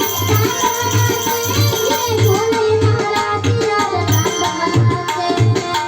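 Music with a hand drum, tabla-like, beating steadily about three strokes every two seconds, under a melody that slides up and down in pitch.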